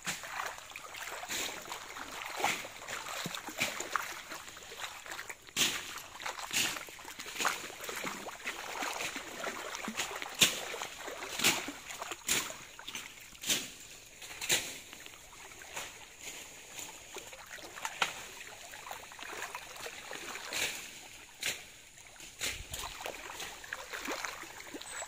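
Splashing steps wading through a shallow stream, about one splash a second at an uneven pace, over the stream's steady trickle.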